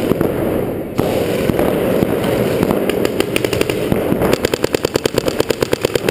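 Paintball markers firing: scattered pops, then from about four seconds in a rapid, even stream of shots, about ten a second.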